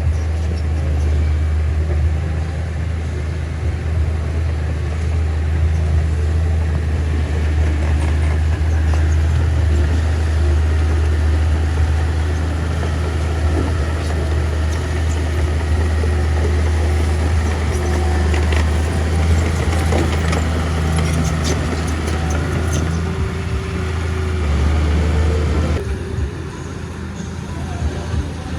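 Bulldozer's diesel engine running steadily with a deep drone, with scattered knocks and clicks from the machine at work; the engine sound drops in level near the end.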